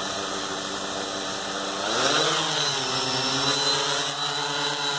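Blade Chroma quadcopter's four motors and propellers humming, running on a nearly drained battery. About two seconds in, the hum rises in pitch and grows louder as the drone lifts off again, then holds steady in hover.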